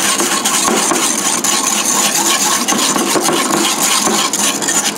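Wire whisk beating a thick, creamy sauce in a glazed ceramic bowl, with fast, steady strokes scraping and splashing against the bowl.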